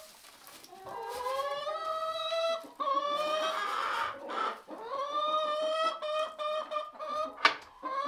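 Hens calling in a run of long, drawn-out calls, each one to two seconds long and rising slightly in pitch, one after another; a single sharp knock near the end.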